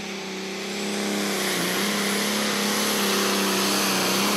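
Pulling tractor's diesel engine running flat out under load as it drags the weight sled down the track: a loud, steady drone that swells about a second in and then holds.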